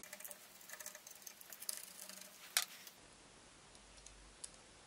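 Faint clicks and light knocks of a screwdriver and small metal parts as the voltage regulator is unscrewed from a Babetta moped, with one sharper click about two and a half seconds in. The last couple of seconds are near silence with a single small tick.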